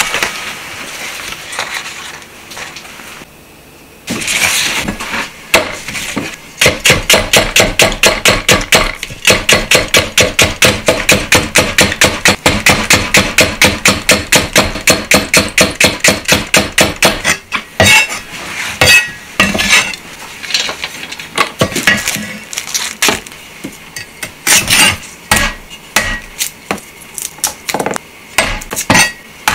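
A broad cleaver chopping a Japanese long green onion on a wooden cutting board: fast, even knife knocks, about four to five a second. A little past halfway they give way to slower, irregular knocks of the blade on the board as garlic cloves are cut.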